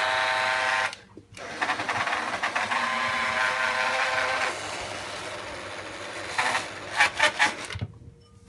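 Small electric blade coffee grinder running with a whine as it grinds cocoa nibs and sugar into a thick paste. It cuts out about a second in, starts again and runs for several seconds, then gives a few short bursts before stopping near the end. The motor is labouring as the cocoa paste thickens.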